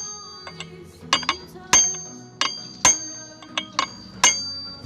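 Hammer striking a small chisel set against a loose bolt inside a Honda Vario 125 scooter's CVT case to drive it tight: about seven sharp metallic strikes at uneven intervals, each ringing on briefly.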